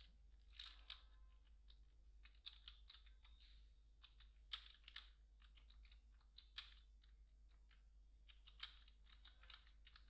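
Faint typing on a computer keyboard: irregular runs of keystroke clicks with short pauses between words, over a low steady hum.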